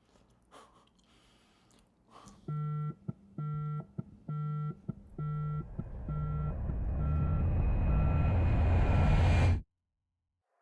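Microwave oven beeping, a run of evenly spaced beeps about one a second, while a low rumbling noise swells louder underneath and then cuts off suddenly near the end.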